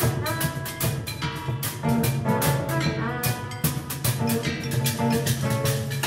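Scrap-instrument band playing live: a fast, busy rhythm struck on junk percussion such as buckets and barrels, with a violin holding notes over a steady low line.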